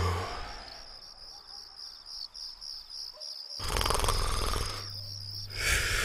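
Comic cartoon snoring: two long snores, one starting about three and a half seconds in and the next near the end, each with a low rattling buzz. Steady pulsing cricket chirps run underneath.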